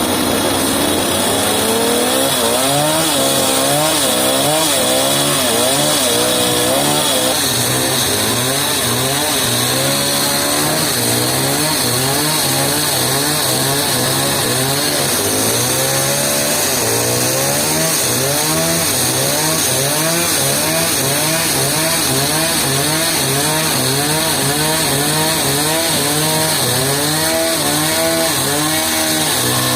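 Powered saw running and cutting through timber, its pitch wavering up and down continuously as the load changes.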